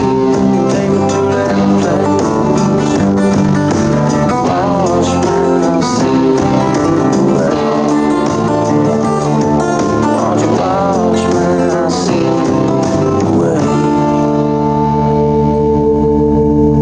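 Background music: a guitar-led country-blues song. Near the end it settles into a long, steady ringing chord.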